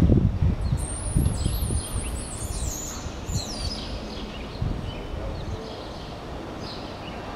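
Birds chirping and twittering in quick, high sliding notes, thickest in the first three seconds. Underneath, an irregular low rumble on the microphone, loudest in the first two seconds and again briefly in the middle.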